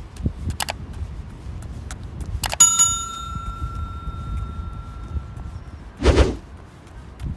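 A single bright bell ding about two and a half seconds in, ringing out and fading over about three seconds: the notification-bell chime of a subscribe-button animation. Light clicks and a short burst of noise near the end sit over a low outdoor background.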